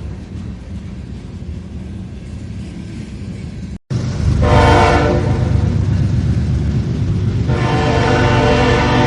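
A low rumble, then a short break, then a train running loud with its horn sounding twice: a short blast about five seconds in and a long, held blast from about seven and a half seconds.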